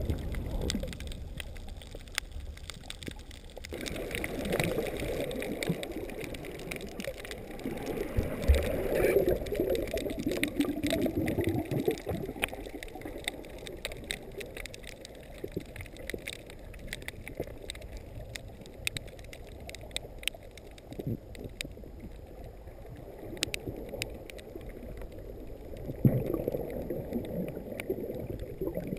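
Underwater sound through a GoPro camera housing: muffled rushing and gurgling of surging seawater, with a scatter of faint clicks. It swells louder twice, for several seconds from about four seconds in and again near the end.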